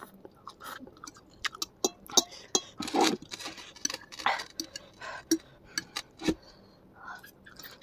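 A metal fork clicking and scraping against a plate many times, at an irregular pace, with slurping and chewing of spicy instant noodles.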